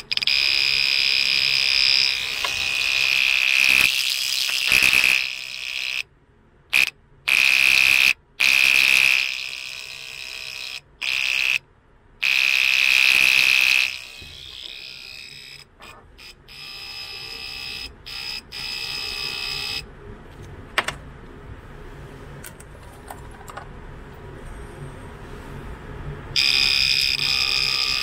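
Homemade reversing buzzer, an ordinary relay with a capacitor switching a small round speaker from a 12 V battery, sounding a shrill steady tone. It cuts out and restarts several times from about six seconds in, goes faint with scattered clicks through the middle, and comes back loud just before the end.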